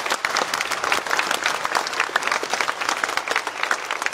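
A large audience applauding, many hands clapping densely and steadily.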